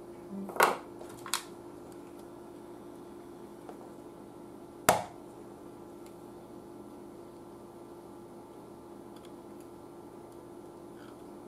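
Sharp clicks of small hand tools working wire at a workbench: two close together near the start and another about five seconds in, over a faint steady hum.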